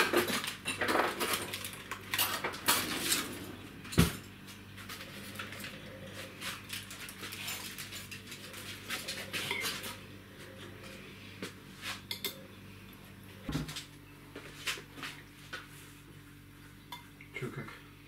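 Plates and cutlery clattering as the baked fish is dished up: a run of clinks and scrapes, busiest in the first half, with a sharp knock about four seconds in and another past the middle, then only a few scattered clinks.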